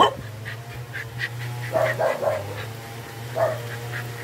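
A dog making short, pitched vocal sounds in small clusters over a steady low hum, with a sharp loud sound right at the start.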